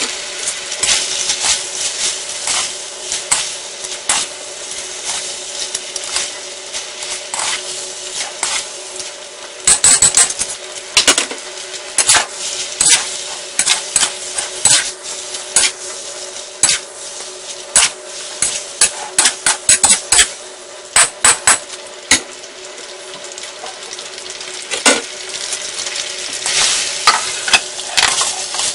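Sweet potato glass noodles with chicken and vegetables sizzling in a steel wok, with a wok spatula scraping and clattering against the wok as the noodles are stirred and tossed. Near the end, tongs click on the wok as the noodles are lifted out.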